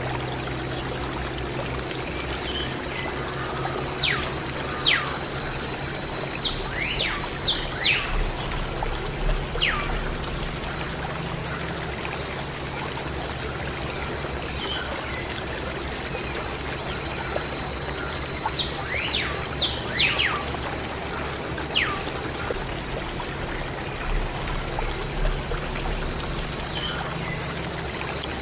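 Water pouring and trickling steadily from a small pump's clear plastic tube onto toy tractor models, over a steady faint high whine. Birds chirp in two short spells of quick falling calls.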